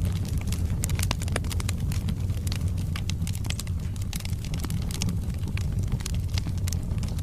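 Wood logs burning in a fireplace: a steady low rumble of the flames with frequent sharp, irregular crackles and pops from the wood.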